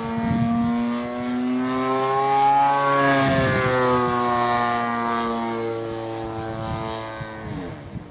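Zenoah G38 38cc single-cylinder two-stroke gas engine of a giant-scale RC plane, spinning a 20x8 propeller in flight. The engine note climbs a little as the plane passes and then eases down. Near the end the pitch drops steeply and the sound fades.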